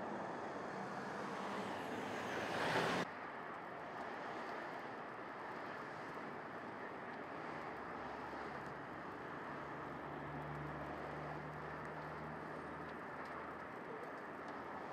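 Semi-truck cab fire burning: a constant rushing noise of the flames, with a louder hiss that builds and cuts off abruptly about three seconds in.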